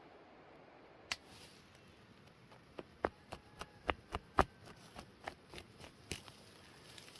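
Sharp chopping strikes of a blade: one about a second in, then a run of about fourteen irregular strikes, roughly three a second, over the next three and a half seconds.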